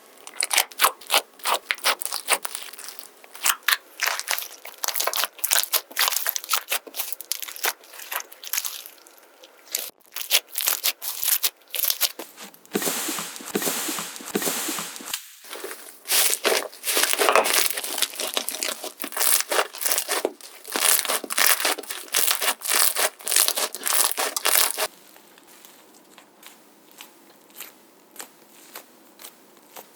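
Multi-colour slime being squished and worked, making dense runs of sticky crackles and pops. It goes much quieter in the last few seconds.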